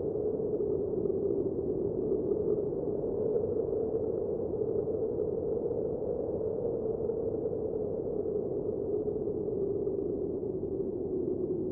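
A steady droning hum over a soft hiss, even and unbroken, with no beat or change.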